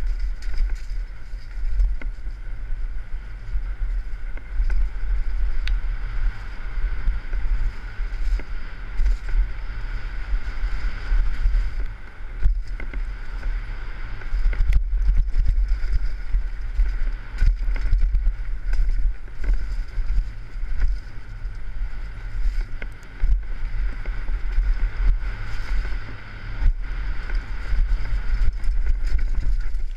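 Wind buffeting a helmet-mounted GoPro on a fast downhill mountain-bike descent, with tyre noise on the dirt trail and frequent short clicks and rattles from the bike over bumps.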